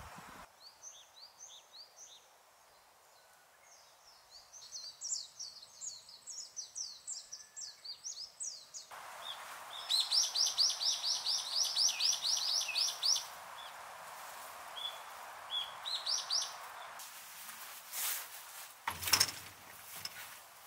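Songbird singing in quick runs of short, high, falling chirps over outdoor background noise. Near the end come a few sharp knocks.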